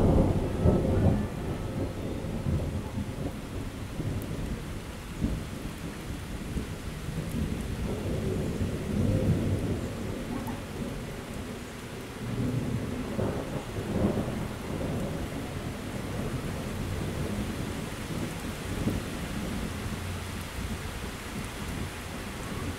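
Thunder from a small thunderstorm rolling and rumbling over steady rain. The loudest roll comes at the very start, with further rolls a little before halfway and again a few seconds later.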